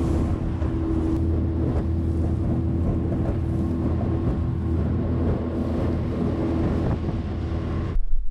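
Small boat's motor running steadily at cruising speed, with wind buffeting the microphone as the boat moves. Just before the end the motor sound cuts off abruptly, leaving only wind rumble.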